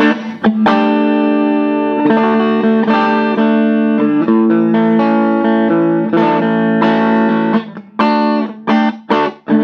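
Strat-type electric guitar strummed in chords through a 1971 Watkins Clubman valve amplifier, its single EL84 running in class A, the chords ringing on between strums with a few quick choppy strums near the end.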